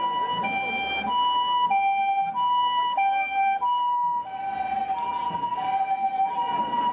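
Japanese ambulance's two-tone siren passing close by, switching evenly between a high and a low note about every half second.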